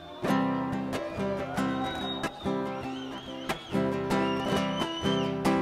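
Acoustic guitar strumming chords, with sharp strokes a few times a second over ringing chords.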